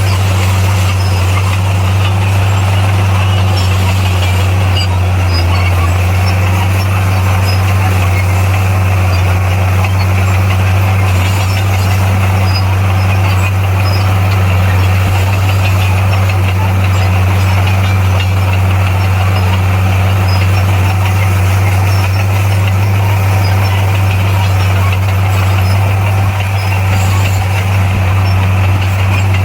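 Bulldozer's diesel engine running steadily with a deep, constant drone.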